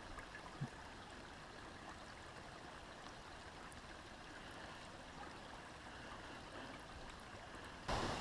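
Faint, steady rushing background noise outdoors, with one small low knock about half a second in.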